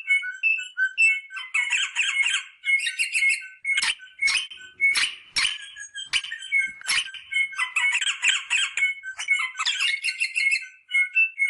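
Rosella parrots calling: quick runs of short, repeated piping notes broken by bursts of harsh chattering squawks. A few sharp clicks come in the middle.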